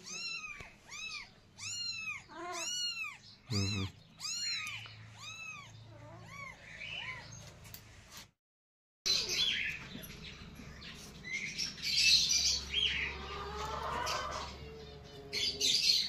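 Young kitten mewing over and over in high, rising-and-falling cries, about two a second, which fade out about seven seconds in. After a short break come fainter mixed sounds with some bird chirps.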